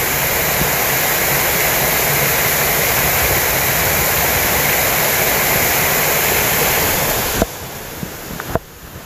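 Waterfall rushing, a steady even noise of falling water that cuts off suddenly about seven seconds in. A much quieter background with a few light clicks follows.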